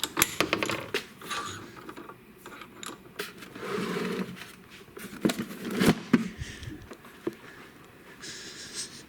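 Handling noises from tools and parts on a table saw: a quick run of sharp clicks, then a scrape and several sharp knocks.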